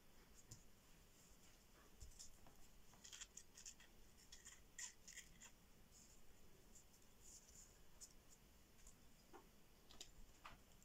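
Near silence with faint, scattered light ticks and rustles of hands handling small fabric pieces and a glue tube on a tabletop.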